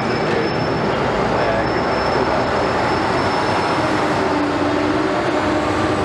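Heavy construction machinery running: a steady noise of diesel engines, with a thin high whine that breaks off and comes back.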